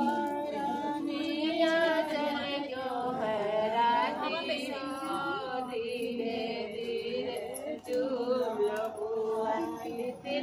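Several women singing a traditional wedding folk song together, with long held, wavering notes and voices overlapping.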